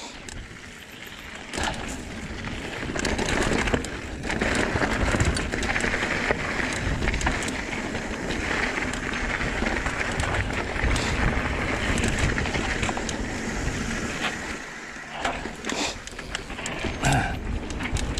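Riding noise of a Trek Fuel EX 7 mountain bike descending dirt singletrack: tyres rolling over dirt and rocks, the bike rattling and clicking over bumps, and wind on the microphone. It grows louder about two to four seconds in and drops briefly near the end.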